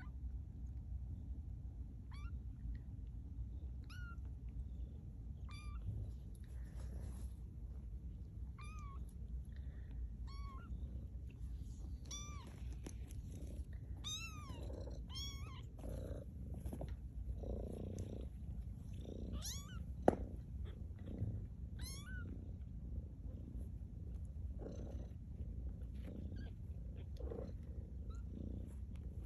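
Two-week-old kittens mewing: short, thin, high cries that rise and fall, one every couple of seconds and bunching up around the middle, over a low steady rumble. A single sharp tap about two-thirds of the way through.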